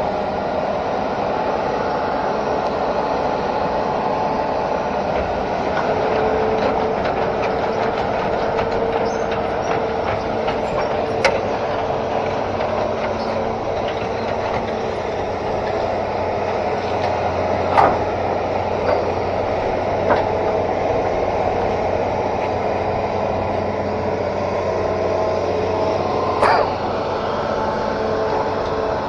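Hitachi Zaxis 210F amphibious excavator running and travelling on its pontoon tracks, a steady mechanical rattle and clatter. A few sharp metal clanks stand out through it.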